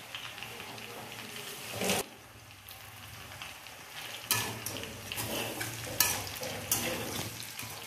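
Pork, potatoes and green capsicum sizzling as they fry in a kadai, stirred with a long metal spatula that scrapes and knocks against the pan in several sharp clanks, the loudest about two seconds and six seconds in.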